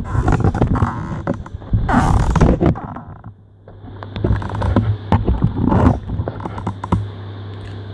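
Handling noise from the phone that is recording being adjusted and repositioned: irregular rustles, scrapes and knocks on the microphone, the loudest a couple of seconds in, over a steady low hum.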